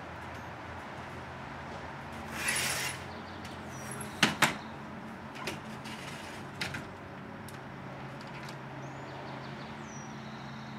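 Two sharp knocks in quick succession about four seconds in, with a short hiss a little before them and a few fainter clicks after, over a steady low hum.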